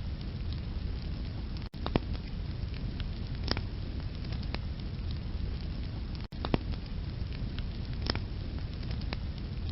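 Wood fire burning in a fireplace: a steady low rumble of flames with sharp crackles and pops every second or so. The sound cuts out for an instant twice.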